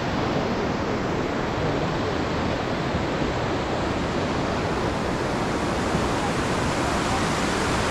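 Steady, even rush of fast-flowing water in a mountain stream.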